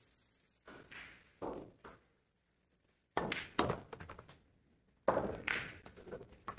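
Pool balls knocking and clacking on a pool table in three short clusters of hits: about a second in, again around three seconds, and again around five seconds.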